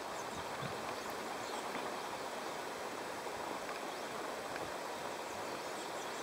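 Steady outdoor ambience, an even hiss, with a few faint, short high chirps.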